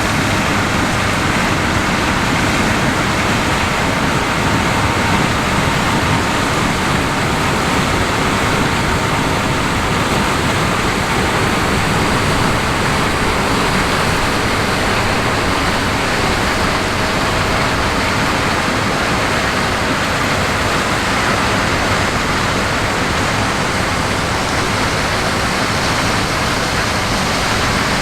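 John Deere X9 1000 combine harvesting corn with a 12-row corn head: a loud, steady, rushing machine noise that holds even without a break.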